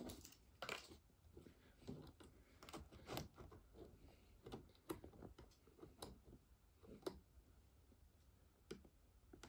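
Faint, irregular clicks and taps of a hand handling and adjusting model railway track on the baseboard.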